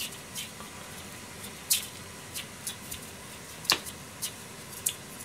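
Knife and cut vegetable pieces clicking against a plastic cutting board during hand cutting: about nine sharp, irregular ticks, the loudest a little under four seconds in.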